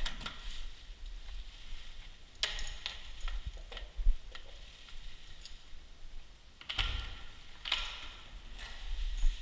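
Scattered rustles, clicks and thumps of a person moving about and going out through a door, picked up by a helmet-mounted GoPro, with low bumps on its microphone.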